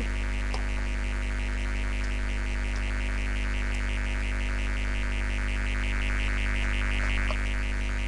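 Steady electrical mains hum with a fast, even pulsing above it.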